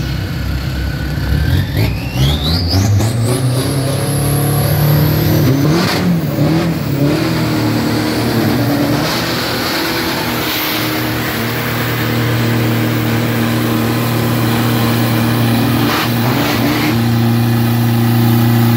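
Racing pickup truck engines revving and running at a drag-strip start line. A high whine rises steeply in pitch over the first few seconds. From about 17 s the engine holds steady high revs while the truck spins its rear tyres in a smoky burnout.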